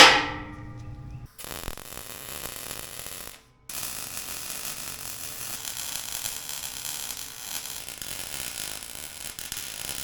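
A single loud metallic clang that rings and dies away over about a second, then the steady crackling hiss of an electric welding arc tacking and welding a steel roof-rack piece, broken off briefly once and resumed.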